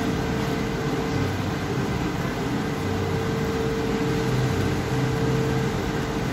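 Steady mechanical hum with a faint constant tone, unchanging throughout.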